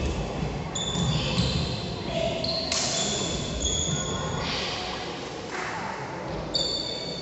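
Badminton rally on a wooden indoor court: shoes squeaking sharply several times as players move, and rackets hitting the shuttlecock with short knocks, echoing in a large hall under a low murmur of voices.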